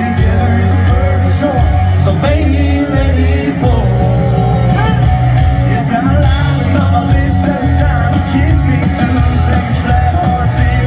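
Live country-rock band playing loudly, with voices singing over it.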